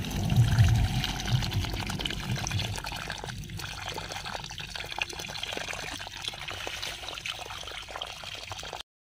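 A stream of water pouring from a small opened tap on a black drip-irrigation pipe and splashing into a muddy puddle. The splashing is loudest in the first second or two, then settles to a steady pour.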